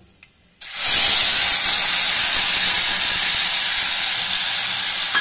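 Wet ground spice paste poured into hot mustard oil in a pan: a loud sizzle that starts suddenly about half a second in and then hisses steadily as the water in the paste boils off.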